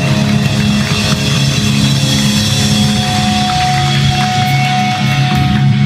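Live hardcore band playing loud: distorted electric guitar, bass guitar and drum kit, with a steady high note held through the second half.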